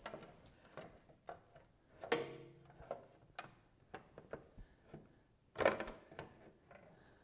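Aftermarket motorcycle chin spoiler being handled and pressed onto its mounting grommets: scattered knocks and clicks, the loudest a little past halfway through, as the panel is lined up and seated.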